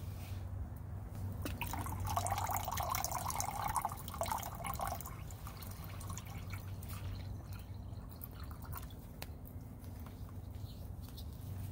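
Water poured from a plastic bottle into a stainless steel camp pot, splashing and filling. It is loudest in the first half and tails off later, with a few crackles from the wood and charcoal fire beneath.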